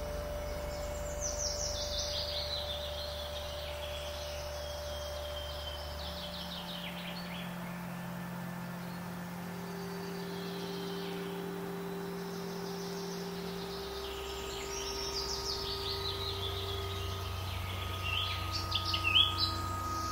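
Birds singing in quick, falling chirps and trills, coming and going in three bursts with the loudest near the end, over a soft sustained drone of low held notes that shift every few seconds.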